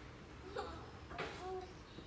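Two short, faint snatches of a person's voice, about half a second and a second and a quarter in, in a small room.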